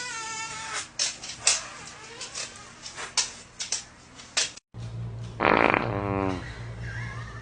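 A dog farting: a loud, pitched fart about a second long that falls in pitch, a little after a cut past the middle, over a steady low hum. Before the cut, a short wavering pitched sound and scattered clicks.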